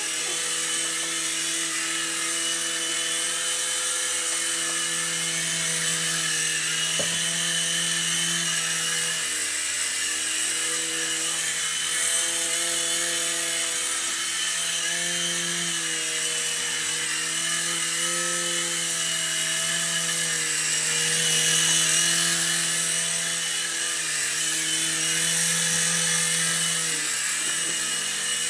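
Falcon X micro RC helicopter's small electric motors and rotors whirring in steady flight, a buzzing hum whose pitch shifts up and down a little several times.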